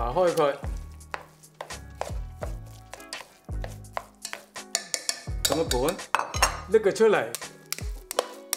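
Wooden chopsticks clicking and scraping against a metal rice-cooker pot as cooked sticky rice is stirred, with a plate and pot knocked on the counter, many short irregular clinks, over background music.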